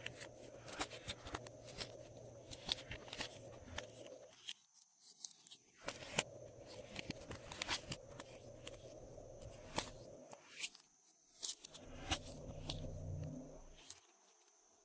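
Glossy slime being squished and mixed by hand: a run of small sticky clicks and crackles, broken by two short pauses.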